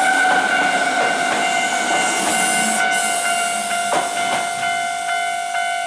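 Japanese level-crossing warning bell ringing steadily over the fading noise of a passing Hankyu train. The bell stops abruptly near the end, the sign that the train has cleared the crossing.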